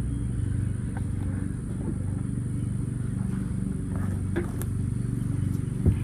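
A steady low hum with many overtones. Near the end comes a short dull knock as a wooden hive box is handled.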